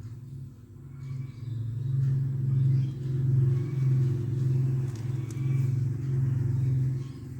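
Domestic cat purring, a loud low rumble that pulses in regular swells and eases with each breath, growing stronger after about a second.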